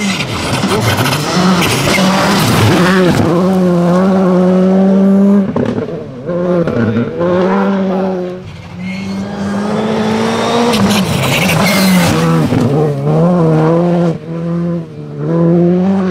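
Skoda Fabia R5 rally car's turbocharged four-cylinder engine held at high revs, flat out on a gravel stage. It is broken by several brief lifts and gear changes, with a hiss of gravel thrown from the tyres as the car slides through a bend.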